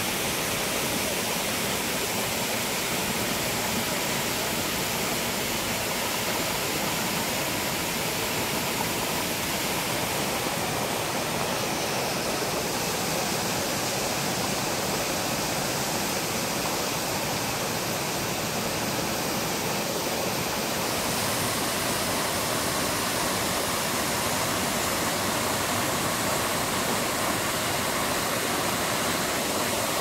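Boyana Waterfall pouring onto the rocks below: a steady rush of falling water.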